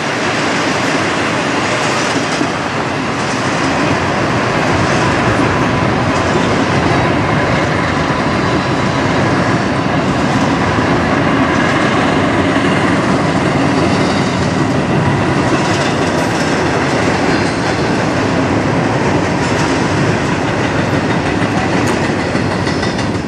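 Freight train cars rolling past: a steady rumble and clatter of steel wheels on the rails.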